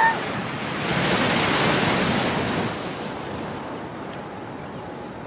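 Ocean surf breaking on the beach, with wind buffeting the microphone. A wave swells about a second in and then washes out more quietly.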